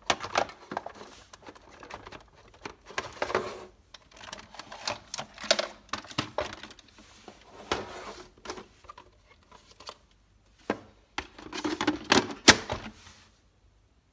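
Plastic clicks, knocks and rattles of an iRobot Roomba 880's dust bin being handled and snapped back into the robot, irregular throughout and loudest just before they stop near the end.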